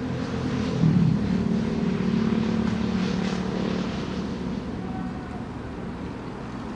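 Armoured vehicle's engine running as it drives, swelling about a second in and then slowly fading away.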